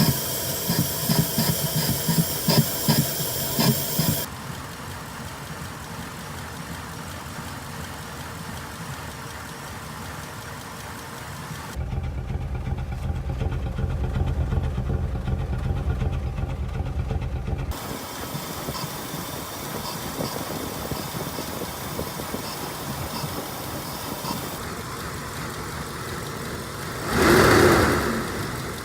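Lincoln Aviator's 4.6 DOHC V8 idling with an uneven, pulsing beat, given one short rev near the end. The rough idle comes from the driver's-bank cam-to-cam chain sitting one tooth off after a timing chain job.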